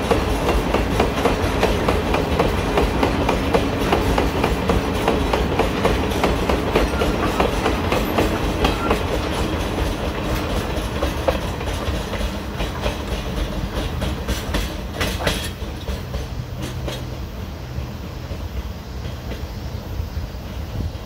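Freight train of Woki 100 limestone hopper wagons rolling past, with wheels clacking rhythmically over the rail joints. The clacking fades away toward the end as the train moves off.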